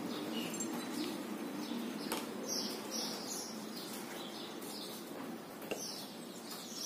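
Small birds chirping repeatedly, short high calls one after another, with a couple of light knocks about two and six seconds in.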